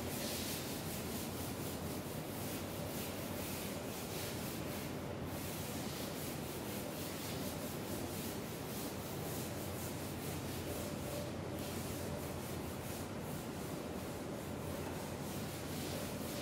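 Chalkboard eraser scrubbed back and forth over a chalkboard, wiping off chalk writing in a continuous run of quick rubbing strokes.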